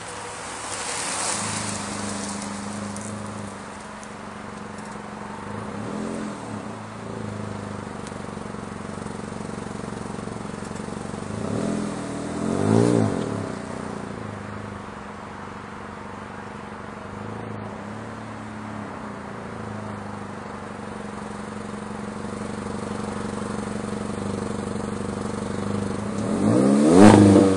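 Exhaust of a 2013 Chevrolet Sonic's 1.8-litre four-cylinder engine with the muffler removed, idling and being revved several times. The revs rise and fall quickly. The largest is about halfway through and the loudest just before the end.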